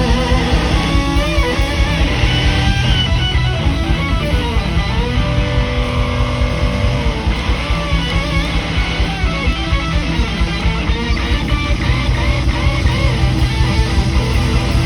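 Live blues-rock band playing loud: electric guitar lines with string bends over bass and drums keeping a fast, steady beat.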